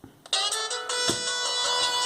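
A BenQ A500 mobile phone's built-in ringtone starts after a short gap, about a third of a second in: a synthesized polyphonic melody of held notes.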